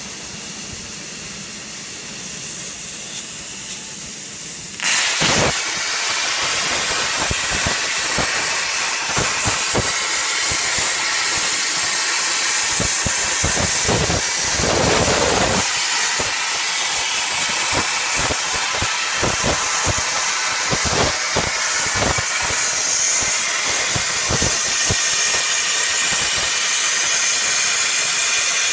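TOPCNC portable CNC plasma cutter's torch cutting steel plate: a loud, steady hiss full of quick crackles. Before that, about five seconds in, a quieter hiss jumps suddenly to full loudness.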